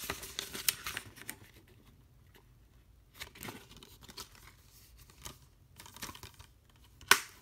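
Paper cover insert rustling and crinkling as it is slid out of a clear plastic Blu-ray case and turned around to the reverse artwork. A loud sharp plastic snap comes near the end.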